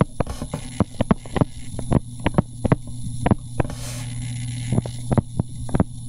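Stylus tapping and scratching on a tablet screen during handwriting: irregular short clicks, a few a second, over a steady low electrical hum.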